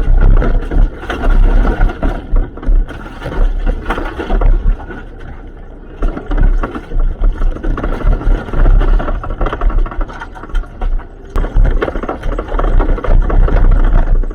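Hyundai Excel rally car driving over a rough road, heard from inside: running engine and road noise broken by frequent irregular heavy thumps and rattles.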